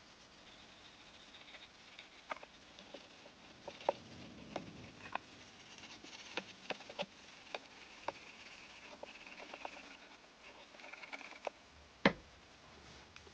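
Irregular light clicks and taps of objects being handled, with stretches of scraping or rubbing, and one sharper knock near the end.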